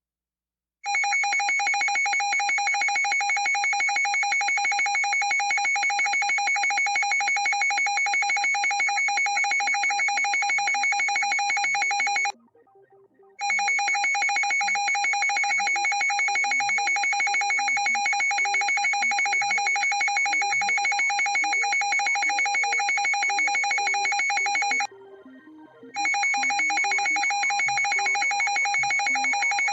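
Emergency alert alarm tone: a loud, rapidly pulsing ring that sounds in three long stretches, cutting out for about a second twice, about 12 and 25 seconds in.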